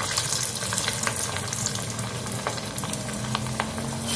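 Cauliflower vadai patties deep-frying in hot oil in a steel kadai: a steady sizzle dotted with many small crackles and pops as fresh patties go into the oil.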